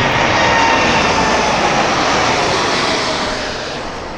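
Boeing 747's four jet engines at takeoff power as it climbs out overhead: loud jet noise with a whine that falls in pitch as it passes, fading over the last second or so.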